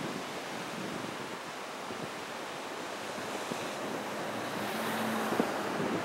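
Rough sea surf breaking and washing over a rocky shore in a steady roar of foaming water, swelling a little near the end, with wind on the microphone.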